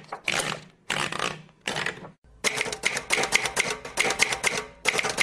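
Typewriter: a few short noisy bursts, then from about two and a half seconds in a fast run of key strikes, several clacks a second.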